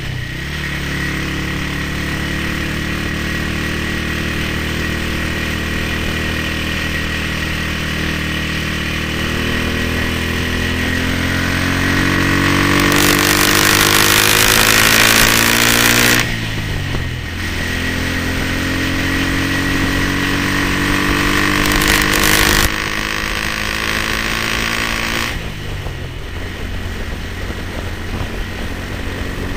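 1970 BSA Starfire B25's 250 cc single-cylinder four-stroke engine heard from the saddle under way. Its pitch climbs steadily as the bike accelerates for about half the time, then falls away sharply. It climbs and drops again twice more, the last near the end. Wind rushes over the microphone at the fastest, loudest stretches.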